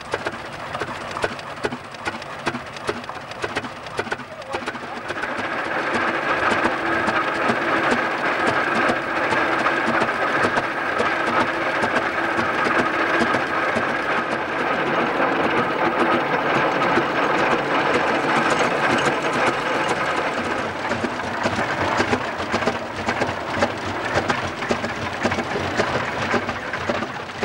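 Ploughing engine working, a dense rapid mechanical clatter; a steady whine joins about five seconds in and dies away around twenty seconds.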